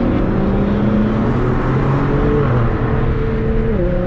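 Tuned Alfa Romeo Giulia Quadrifoglio's twin-turbo V6 heard from inside the cabin as the car gathers speed, over steady road noise. The engine note holds fairly steady, then steps up in pitch near the end.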